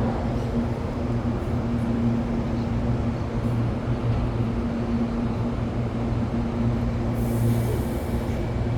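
Belo Horizonte Metro Série 1000 electric multiple unit running out of a station, a steady low hum under rolling wheel-on-rail noise. A brief hiss comes in near the end.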